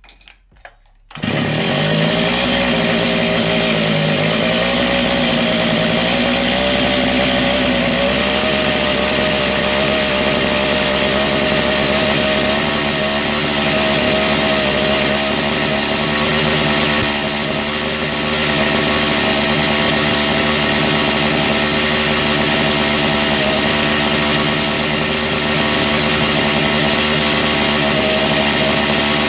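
Freshly rebuilt Zenoah G45L two-stroke brush cutter engine, fitted with a TK carburetor, running on a test from about a second in. Its speed wavers for the first several seconds, then holds steady.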